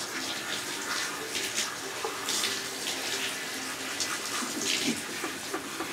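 Handheld shower sprayer running, water spraying onto a wet dog's coat and draining into a bathtub, a steady hiss with a few brief louder splashes.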